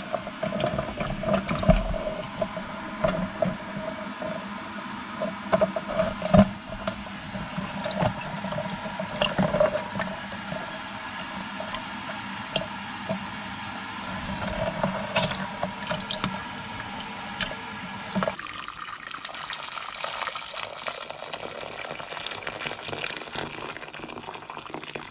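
Water sloshing with scattered clicks and knocks. About three-quarters of the way through it gives way to an even rush of tap water pouring into a stainless steel pot.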